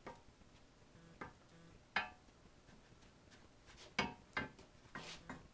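Hand covering iron knocking and sliding on the taut Poly-Fiber fabric of an airplane elevator during the first low-heat shrinking pass. A few sharp clicks and knocks, the loudest about two and four seconds in, with a short scrape near the end.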